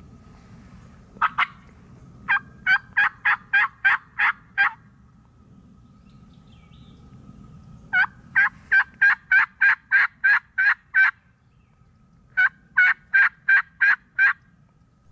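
Turkey yelping on a mouth call: three runs of loud, evenly spaced yelps, about three a second, with seven to ten yelps in each run and a pause of several seconds between runs.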